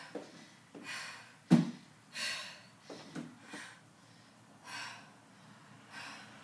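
A woman breathing hard during exercise, with a sharp hissing exhale about every second. Two heavy footfall thuds on an aerobic step and wooden floor in the first two seconds, the second the loudest.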